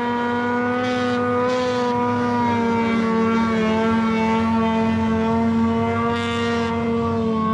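Ski-Doo 600 RS race snowmobile's two-stroke twin engine running at steady high revs, holding an almost constant pitch as the sled skips across open water.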